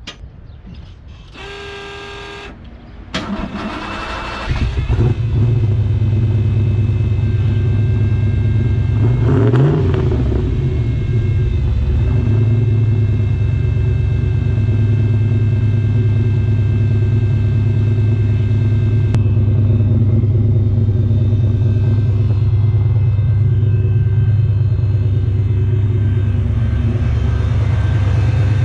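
Turbocharged Fox Body Ford Mustang V8 started through a full 3-inch dual exhaust with Borla XS straight-through mufflers. A loud electric fuel pump whines briefly as it primes, the starter cranks, the engine catches about four seconds in, takes one quick rev near ten seconds, then settles into a steady idle.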